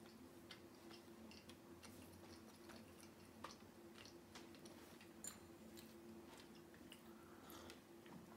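Faint close-up chewing of a small open sandwich of yeast-free bread and goat cheese: soft, irregular mouth clicks and squishes over a faint steady hum.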